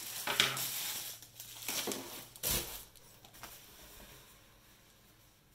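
Clear plastic wrapping crinkling and rustling as it is crumpled by hand, with a thump about two and a half seconds in; the rustling dies away in the second half.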